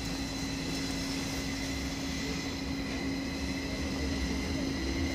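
Electric double-deck commuter train running slowly: a steady low rumble with an even hum and several high steady whining tones.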